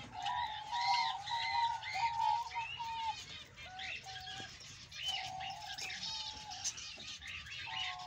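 Budgerigar chatter: a fast, busy stream of short warbled chirps and squeaks, thinning out briefly about halfway through and then picking up again.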